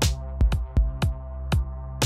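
Electronic background music: a steady beat of sharp drum hits over a held low bass note, opening with a loud crash.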